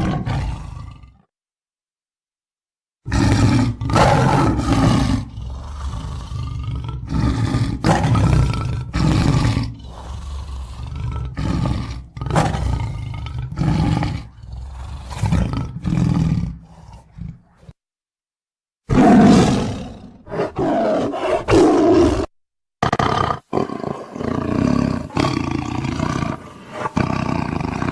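Tiger roars and growls, one after another in loud bursts, broken by sudden silent gaps twice near the start and middle.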